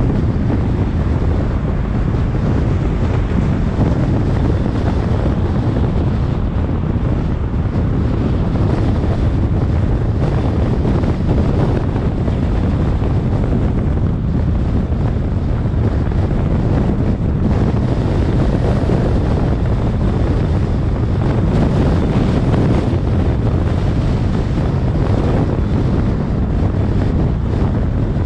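Steady wind noise on the microphone over the road noise of a car driving at city speed.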